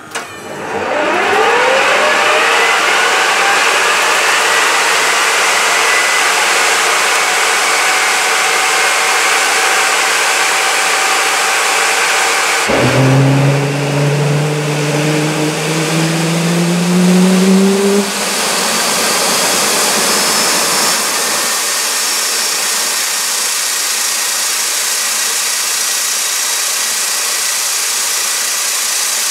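Fairchild J44 turbojet starting: the starter spins it up with a whine that rises in pitch over the first few seconds and then holds. About 13 seconds in the engine lights off with flame from the jet pipe; a sudden louder, lower sound rises in pitch for about five seconds as it accelerates, then it settles into a steady run.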